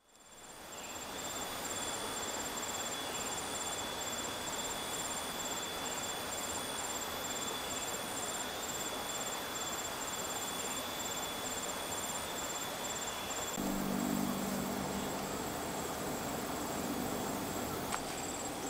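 Insects chirping and trilling steadily in rural outdoor ambience, fading in at the start, with one high chirp pulsing in a regular rhythm. About two-thirds of the way in, a low steady hum joins the insects and stops shortly before the end.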